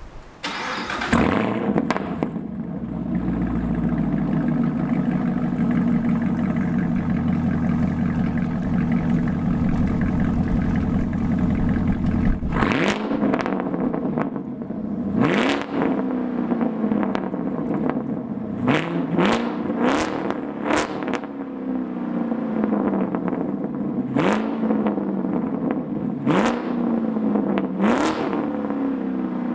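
Chevrolet Camaro SS 1LE 6.2-litre V8 with secondary-cat and muffler delete, idling with a steady rumble for about the first twelve seconds. Then it is revved in about ten sharp throttle blips, several in quick succession, with crackles from the exhaust as the revs drop.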